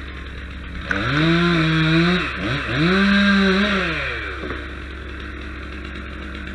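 Chainsaw revved to full throttle in two bursts, about a second in and again at about three seconds, with a short dip between, as it cuts into a tree trunk, then falling back off throttle. A steady low hum runs underneath.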